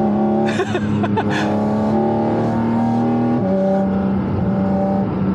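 Porsche 718 Cayman GT4 RS's naturally aspirated 4.0-litre flat-six, heard from inside the cabin, pulling at a steady engine speed with an almost constant pitch. Its note shifts briefly about three and a half seconds in.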